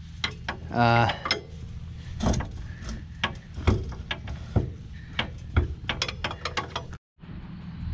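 Irregular metal clinks and clanks over a steady low engine hum; everything cuts off abruptly about seven seconds in, then the hum comes back.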